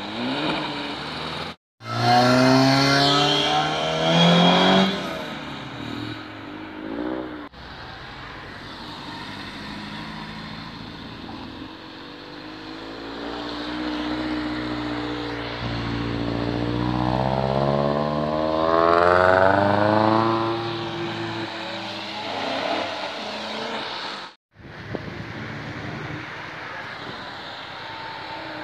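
Performance car engines accelerating hard past, one car after another in short cuts. There are loud revving bursts in the first few seconds, and later an engine note climbs steadily in pitch as a car pulls away.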